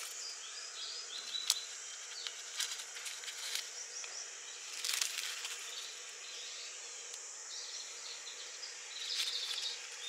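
A dry, crisp, sun-scorched leaf crackling softly a few times as fingers handle it, the loudest crackle about halfway through. Faint high chirping runs steadily underneath.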